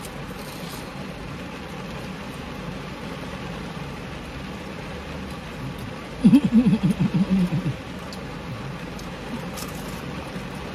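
Steady rain on the roof of a parked car, heard from inside the cabin as an even hiss. About six seconds in, a person's voice breaks in for about a second and a half in quick pulses.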